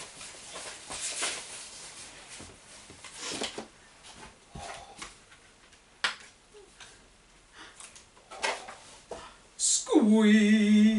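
Soft knocks and paper rustling as sheets, a bottle and a plastic tray are handled, then near the end a woman's loud drawn-out 'ooooh' that slides down in pitch and holds.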